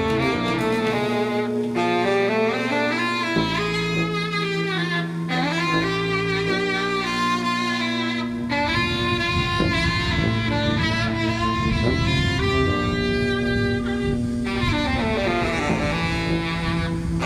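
Layered saxophones playing long, overlapping held tones over a steady low drone, with slow bends and glides in pitch, in a free-improvised ambient style.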